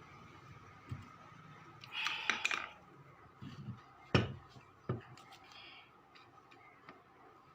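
A series of separate clicks and knocks, with a short scraping rattle about two seconds in and the loudest, a sharp knock, about four seconds in.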